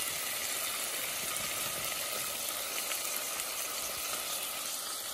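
Chopped onion, garlic and jalapeño frying in olive oil on medium heat, with freshly added okra: a steady sizzle with light crackling.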